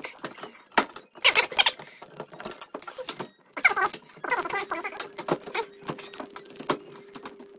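Irregular scraping, knocking and rattling as a screwdriver works at the top edge of a washing machine's sheet-metal side panel and the panel is pushed into place. A faint steady hum comes in about halfway.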